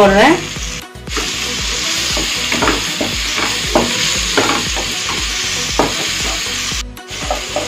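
Dried fish (karuvadu) in onion-tomato masala sizzling as it fries in oil in a pan. A wooden spatula stirs it, scraping and tapping against the pan now and then.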